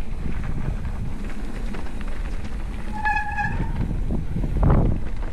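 Mountain bike riding down a dirt trail: steady rumble of wind on the microphone and tyres on the trail. About three seconds in, a short high squeal from the bike's disc brakes, and a louder thud near the end.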